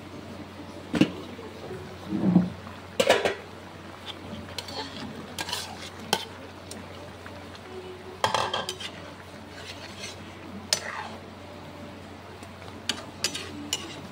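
A stainless steel pan lid lifted off a wok, then a ladle stirring a thick stew in the metal wok, with irregular clinks and knocks as it hits the pan's side.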